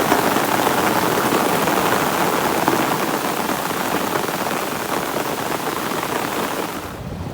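Steady rain falling, an even hiss. Near the end it drops away abruptly and a low rumble begins.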